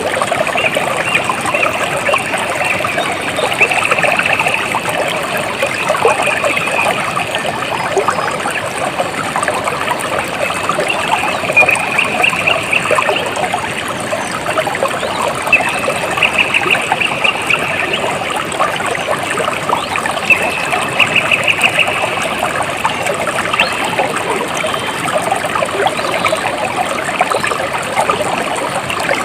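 Water trickling and splashing steadily over rocks in a small stream. A high, rapidly pulsing trill comes in a few times, each lasting a second or two.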